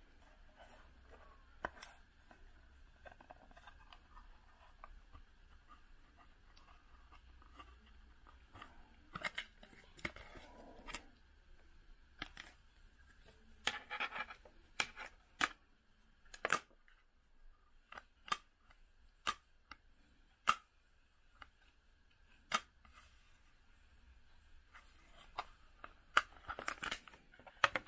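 Magnetic iPhone case with glass panels being handled and fitted around the phone. It gives scattered light clicks and taps with some short scraping, the clicks coming thicker in the second half.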